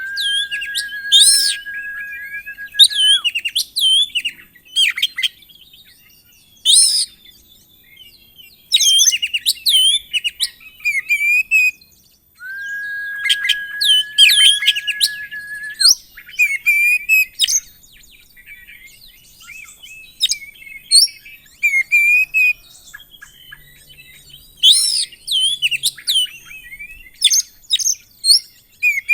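Oriental magpie-robin singing a varied song full of mimicked phrases: rapid chirps, trills and sharp whistles, with two long steady whistled notes, one at the start and another about halfway through.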